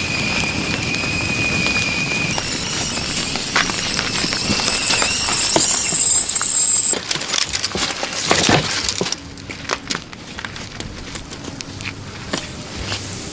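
Charcoal and wood fire crackling and popping under a spit-roasted crocodile, with a steady high-pitched whine over it. The high whine stops abruptly about seven seconds in, a few sharp pops follow, and then it is quieter.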